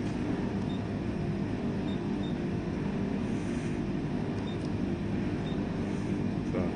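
16K20F3 CNC lathe running with a steady low mechanical hum. A few faint short high pips come now and then.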